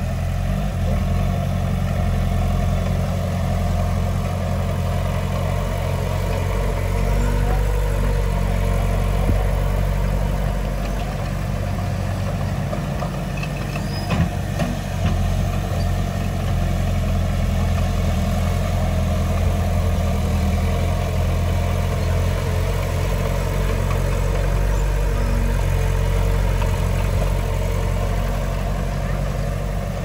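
Heavy diesel engine of earthmoving machinery running steadily at a low, even pitch, with one brief knock about halfway through.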